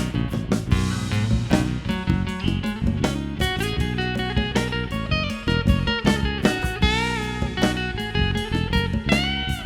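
Live band playing an instrumental break: a guitar lead line with bent notes over strummed rhythm guitar and drums.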